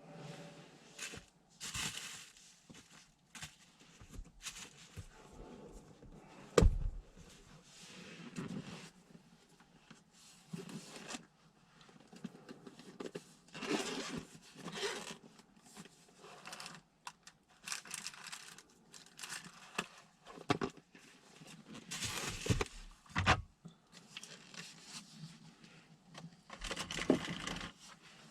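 Irregular rustling, scraping and clicking, like things being handled in a small room, with a sharp knock about six and a half seconds in and another near the end.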